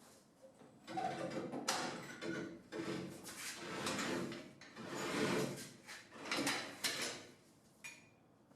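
Workshop handling noise: irregular scraping and sliding with several sharp knocks and clacks, as heavy car parts are shifted about.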